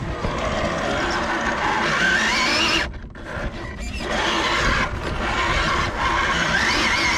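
Electric motor and gearbox of a radio-controlled scale crawler truck whining under throttle. The pitch rises as it speeds up, and the sound dips briefly about three seconds in.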